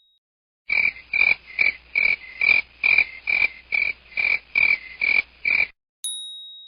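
A croaking sound effect like a frog: about fourteen croaks in a steady rhythm, roughly three a second, lasting about five seconds and stopping suddenly. A single bright ding rings out near the end.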